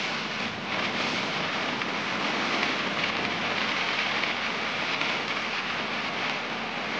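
Steady rushing wind and road noise from riding in a moving vehicle, the wind blowing across the phone's microphone.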